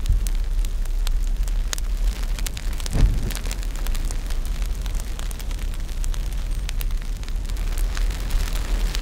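Wood bonfire crackling and popping, with a steady low rumble underneath and a dull thump about three seconds in.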